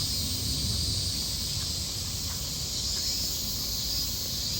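Steady chorus of summer insects, most likely cicadas: an even, high hiss that holds without a break, over a low background rumble.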